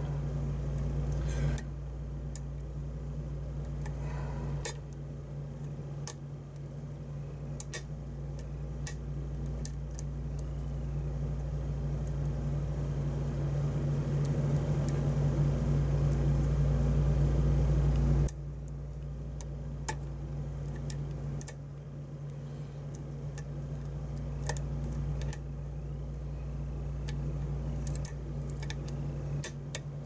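Small metallic clicks and scrapes of a lock pick working the pins of a pin-tumbler challenge lock under tension, over a steady low hum that slowly swells and then cuts off suddenly a little past halfway.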